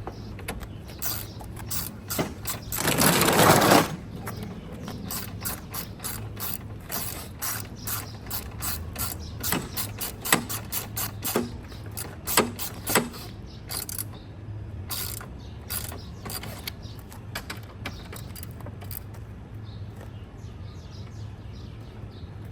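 Repeated sharp mechanical clicks and ratcheting from hand tools and plastic parts as a car headlight assembly is fitted in place, with a loud scraping rustle about three seconds in.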